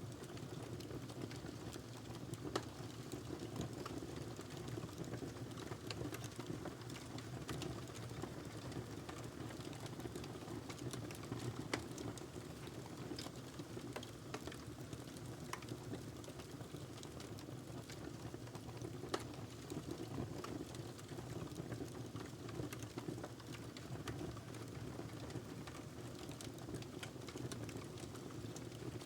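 Wood fire crackling in a fireplace: a steady low rumble of burning with frequent small sharp pops and snaps, a few of them louder.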